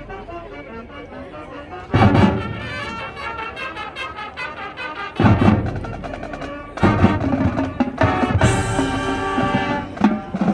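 Marching band playing brass over drums and percussion, with loud accented ensemble hits about two seconds in, again about five seconds in and near seven seconds.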